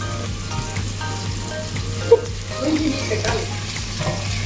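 Beef and onions frying in a steel pot, a steady sizzle over a low hum, with one sharp knock about two seconds in.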